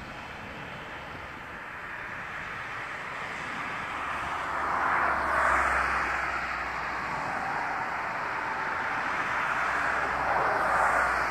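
Airbus A380's four jet engines running on the ground, a steady rushing noise with a low rumble that grows louder over the first half as the jet turns and rolls along the runway.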